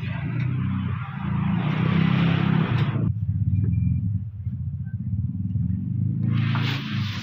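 Small scooter engine running steadily, the Yamaha Mio i 125's single-cylinder four-stroke, with a steady low hum.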